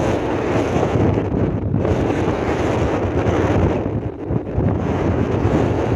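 Wind buffeting the microphone: a loud, gusting low noise with a brief lull about four seconds in.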